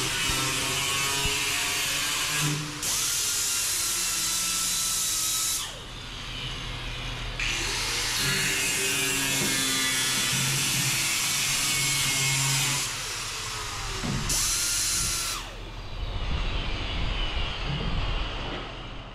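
Hand-held power tool cutting and grinding the rusted sheet steel of a 1962 Impala's rear quarter, throwing sparks. It runs in long stretches, winding down and spinning back up several times, with a rising whine at each start.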